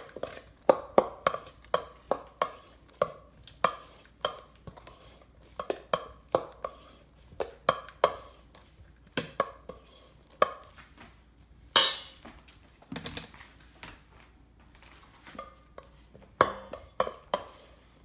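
A utensil clinking and scraping against a stainless steel mixing bowl as carrots are tossed in dressing, in an irregular run of quick knocks with a lull of a few seconds near the end.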